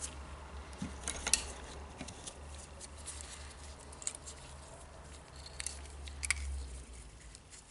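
Small plastic parts being handled and fitted together: the mode selector knob of a rotary hammer and its small spring-loaded catch turned in gloved hands, with a few sharp light clicks. A low steady hum runs underneath and fades near the end.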